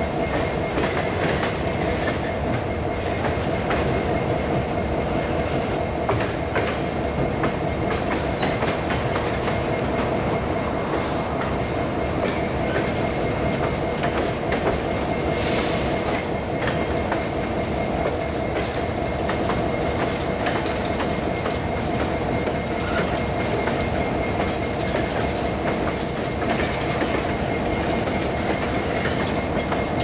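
Freight train cars rolling past: steel wheels running on the rails with a steady rumble and rapid clicking. A thin, steady high ringing tone runs over it.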